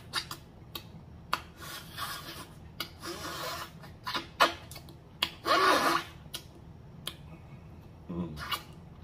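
Close-miked eating sounds: lip smacking, sucking and chewing as meat is pulled off a turkey neck bone and fingers are sucked clean. There are many short sharp smacks and a few longer wet sucking sounds, the loudest about five and a half seconds in.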